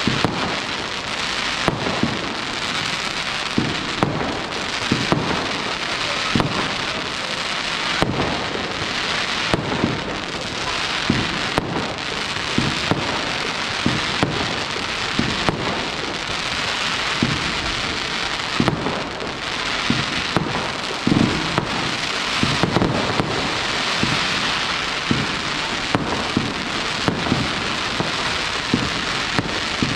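Fireworks display: a dense, steady crackle punctuated by sharp bangs, roughly one or two a second, all the way through.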